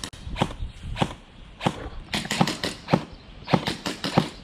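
Airsoft gun firing a string of sharp single shots at irregular spacing, a few in quick succession near the middle and again near the end.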